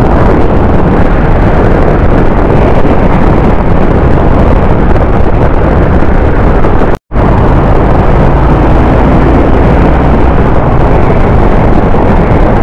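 A motorcycle riding at highway speed: steady wind noise on the microphone over the engine's low running note. The sound drops out for a split second about seven seconds in.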